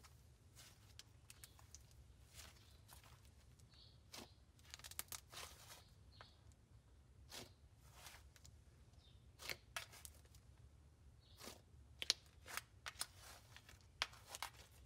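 Fluffy slime being stretched, torn apart and squeezed by hand, giving faint, irregular crackly tearing and squishing sounds that come more often near the end.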